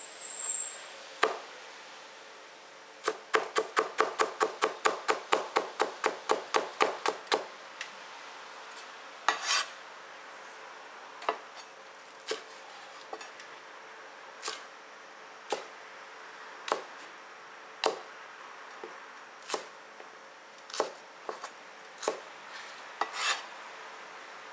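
Knife chopping vegetables on a cutting board. About three seconds in comes a quick run of about five chops a second for some four seconds, then single cuts roughly once a second.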